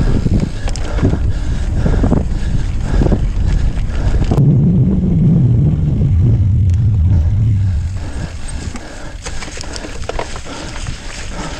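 Gravel bike rolling over a rough dirt track and grass, with heavy wind rumble on the microphone and short clunks and rattles from bumps. The sound gets quieter after about eight seconds as the bike slows.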